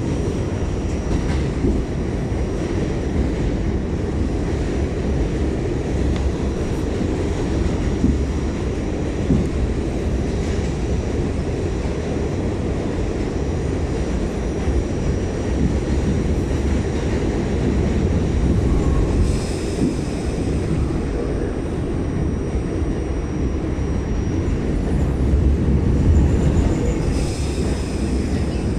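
New York City subway Q train running, heard from aboard: a steady rumble of wheels on rail, with faint high-pitched wheel squeal briefly about two-thirds through and again near the end.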